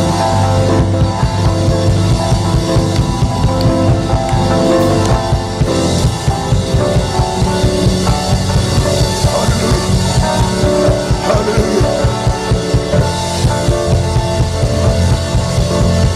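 Band music with a drum kit keeping a fast, driving beat under bass and sustained chords.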